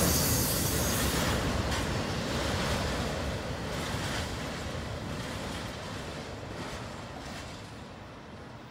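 Double-stack intermodal container train rolling past on the rails, with the rumble of its wheels and a few wheel clicks. The noise fades steadily as the last cars go by and the train moves away.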